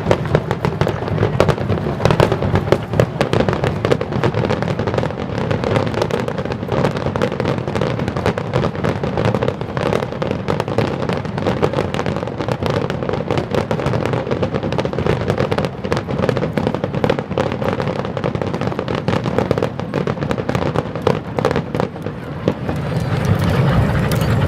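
Fireworks display: a dense, unbroken run of bursts and crackling bangs.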